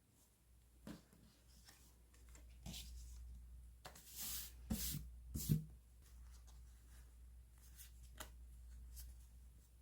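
Paper rustling and crinkling as paper stationery is handled, with a few light taps. The loudest rustles come about four to five and a half seconds in.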